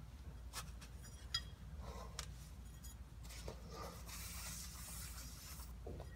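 Faint clicks and small metallic clinks as the Volkswagen Beetle's oil strainer cover plate and its copper washers are handled and fitted, with one brief ringing clink a little over a second in and a rubbing hiss for a couple of seconds near the end.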